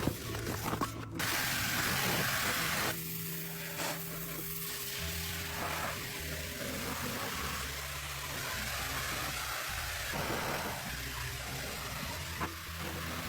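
A steady spraying hiss from a car-detailing cleaning tool, starting about a second in and running on evenly. Low background music notes sit underneath.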